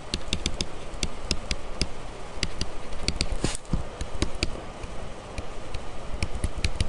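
Pen stylus tip tapping and clicking on a tablet screen during handwriting, a quick irregular run of light clicks.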